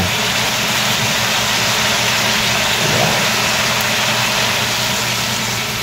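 Pan of sautéed pork and pork intestines sizzling steadily as coconut milk (the second extract) goes in.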